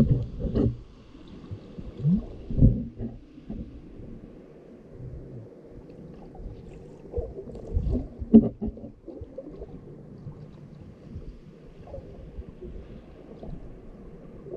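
Muffled underwater sound picked up by a submerged camera: low rumbling water movement with irregular thumps, the loudest about two and a half and eight seconds in.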